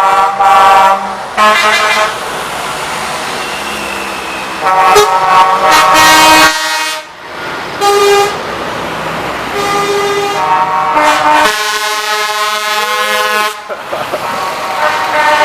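Truck horns and air horns honking in a series of blasts, several horns at different pitches sounding together. Short toots alternate with longer blasts, the longest about two seconds near the end, over steady traffic noise.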